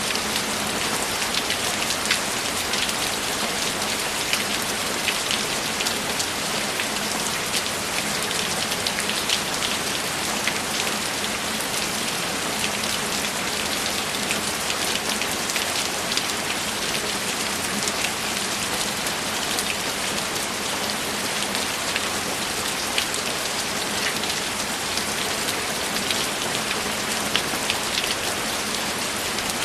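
Steady heavy rain falling, a dense hiss with many individual drops ticking on a surface.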